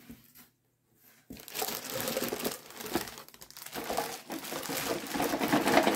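Clear plastic bag holding vinyl model-kit parts crinkling as it is lifted and handled. It starts about a second in and grows louder toward the end.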